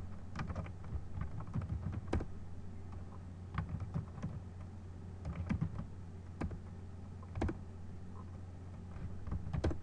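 Typing on a computer keyboard: keystrokes in short runs with pauses between them, over a steady low hum.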